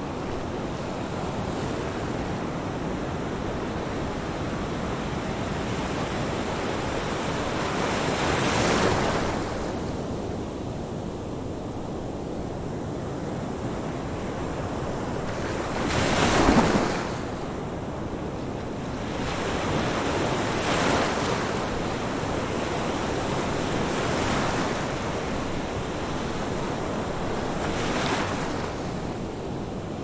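Ocean surf: a steady rush of water with about five waves breaking, the loudest about halfway through.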